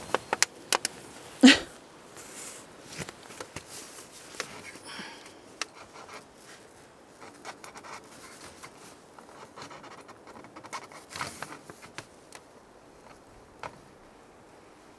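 A metal wood-stove chimney pipe being pushed and worked through a tent's roof jack: a quick run of sharp metallic clicks and knocks in the first two seconds, the loudest about a second and a half in, then scattered lighter clicks and rustling.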